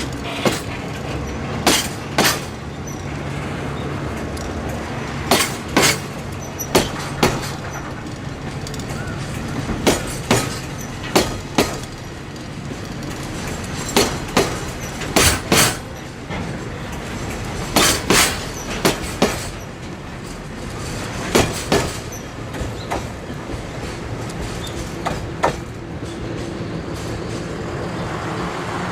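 Freight train wagons rolling past, their wheels clacking over a rail joint in pairs every one to three seconds, over the steady hum of a diesel locomotive engine.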